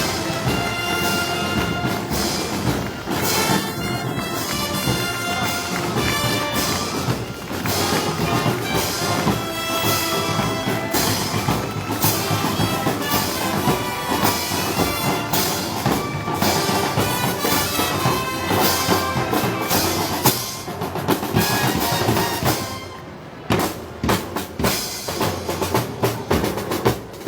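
A brass band with drums playing Moros y Cristianos festival music. Near the end the band thins out and separate drum strokes stand out.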